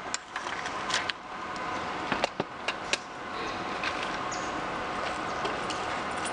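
Steady outdoor background noise, with several short sharp clicks in the first three seconds.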